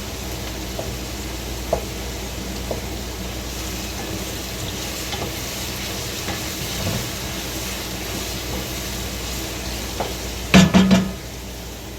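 Chopped onions, carrots and peas sizzling in coconut oil in a large pot, with light scrapes and taps of a stirring spoon. About ten and a half seconds in, a brief loud clatter of the utensil against the pot.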